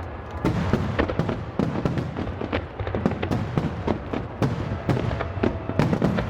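Fireworks display: a dense, continuous barrage of overlapping bangs and crackles, several a second, over a steady low rumble.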